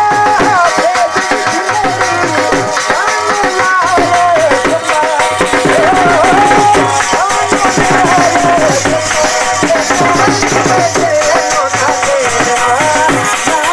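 Lively Saraiki folk music: a dhol drum beaten in a quick, steady rhythm under a wavering, ornamented melody line.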